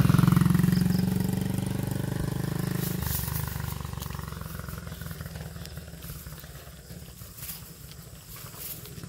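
A small motorcycle passes close by and rides away down the road. Its engine note is loudest at the start and fades steadily as it pulls into the distance.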